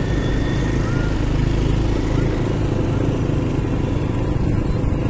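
Motorcycle engine running steadily at low speed, with wind noise on the microphone.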